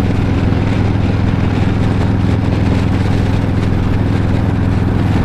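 Harley-Davidson Street Glide's V-twin engine running steadily at highway cruising speed, under a constant rush of wind and road noise.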